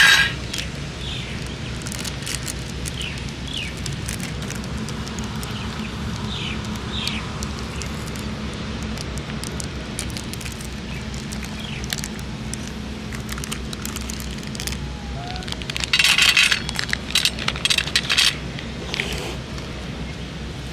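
Dry cat kibble poured into a stainless-steel bowl, the pellets rattling against the metal in a few quick pours near the end. A short sharp sound comes right at the start, and a few short high chirps come early on, over a steady background hum.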